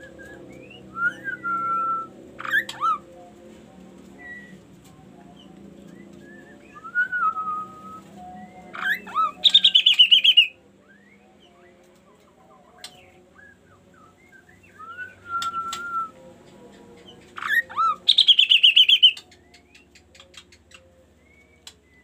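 A caged chestnut-capped laughingthrush (kaso-kaso) singing. It gives short whistled notes that glide up and down, and twice a loud, fast, falling chattering trill, about nine seconds in and again near eighteen seconds.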